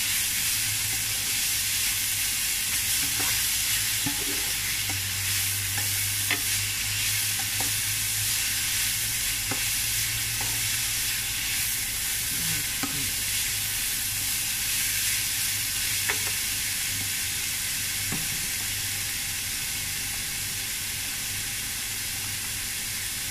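Pounded cassava leaves and pea eggplants sizzling in a granite-coated wok, stirred with a spatula that scrapes and taps against the pan now and then. A steady low hum runs beneath.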